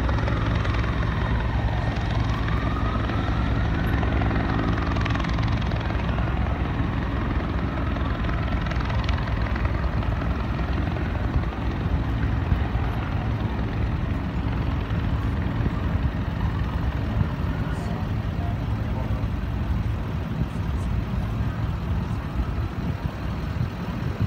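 NYPD helicopter flying low overhead, its rotor and engine making a steady low drone that fades over the second half. In the first few seconds a faint wail rises and falls above it.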